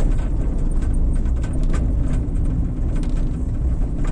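Road and engine noise of a moving vehicle: a steady low rumble with scattered small clicks and knocks.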